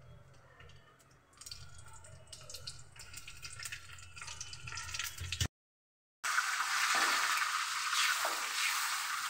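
Hot ghee in a kadhai with sliced ginger and whole spices frying in it. It crackles faintly at first, then after a short silent break it sizzles loudly and steadily.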